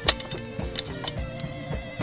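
Background music with held notes and a few sharp clicks, the loudest just after the start.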